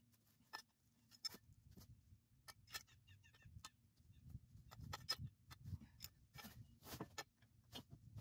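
Faint, scattered metallic clicks and small scrapes of pliers working at a fitting on the end of a rusty Model T driveline tube, with light rustling of dry leaves. The clicks grow a little busier and louder in the second half as the tube is moved.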